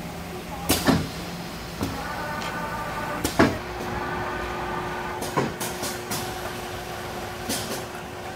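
Screen-printing machine for socks running. It gives a series of sharp mechanical clacks and clunks as its print head and pallets move, over a steady hum, and a steady whining tone joins about halfway through.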